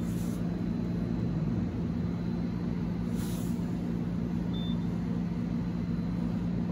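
Steady low machine hum, with a short high electronic beep from a coffee machine's selection button about four and a half seconds in. Two brief hisses sound, one at the start and one about three seconds in.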